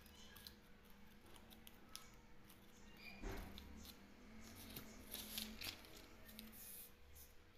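Faint rustling and light taps of paper being handled on a table top, a little louder about five seconds in.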